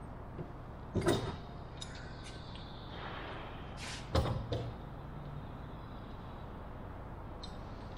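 Wooden frame and one-handed bar clamps knocking and clicking against a wooden workbench as the clamps are set and adjusted: a sharp knock about a second in, another about four seconds in, with lighter clicks between.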